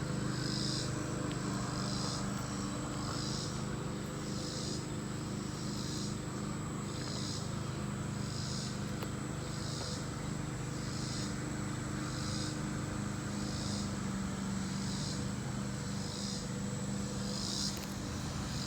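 Outdoor insect chorus: a high-pitched call pulsing evenly about once every second and a quarter, over a steady low mechanical hum.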